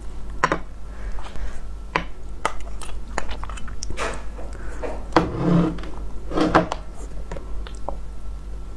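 Wooden spoon stirring glutinous rice balls into thick chocolate sauce in a glass bowl: scattered clicks and knocks of the spoon against the bowl, with wet, sticky sounds of the sauce.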